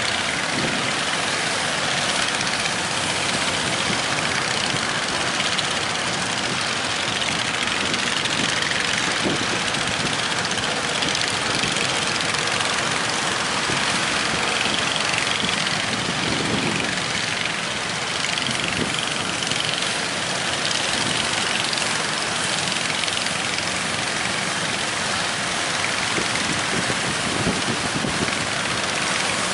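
Fishing boat's engine running steadily under a continuous rush of wind and breaking water.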